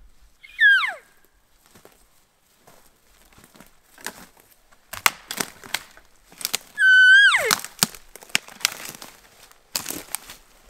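Two cow-elk mews, each falling in pitch: a short one about half a second in, and a louder, longer one about seven seconds in that holds a note before dropping away. Between and after them, footsteps crunch and snap through dry brush and twigs.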